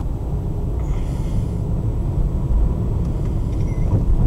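Steady low rumble of a car driving on the road, road and wind noise with no changes in pitch.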